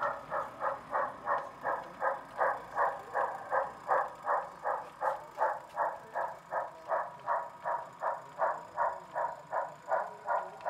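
O scale Southern Pacific steam locomotive model's sound decoder playing steady exhaust chuffs through its onboard speaker, about three a second, as the engine runs at a steady speed.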